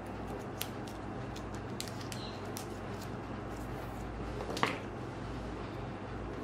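Small clicks and rustles of a photocard and its pink cardboard sleeve being handled, with one sharper crackle of the card stock about four and a half seconds in, over a steady low hum.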